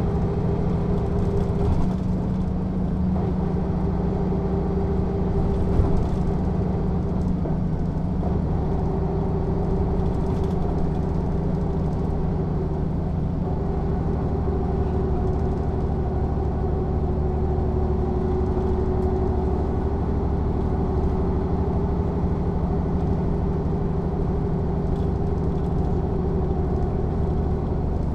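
Mercedes-Benz O 407 bus's six-cylinder diesel engine running steadily, a low, even drone with a slight change in its tone about halfway through.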